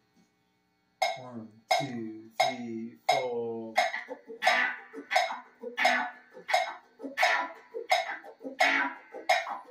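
Guitars starting a song's instrumental intro. After a short pause come four ringing notes about 0.7 s apart, then steady rhythmic strumming about twice a second.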